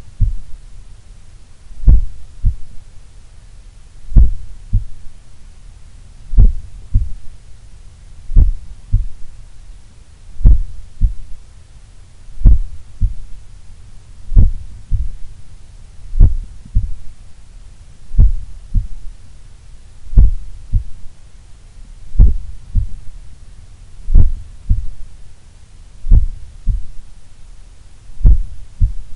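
Human heart beating slowly at rest, heard through a stethoscope on the chest, at about 30 beats a minute. Each beat is a strong first thump followed about half a second later by a softer second one.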